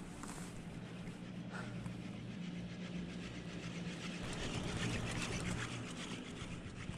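Chairlift running: a steady low mechanical hum under a rushing, rattling hiss that swells about four seconds in and eases off near the end.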